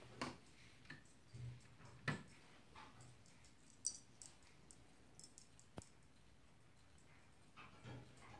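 Near silence with a dog moving about, and about five faint, sharp clicks and taps spread a second or two apart.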